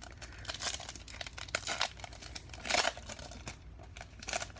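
Foil wrapper of a Panini Prizm basketball card pack being torn open and crinkled by hand, in irregular crackles with the loudest burst a little under three seconds in.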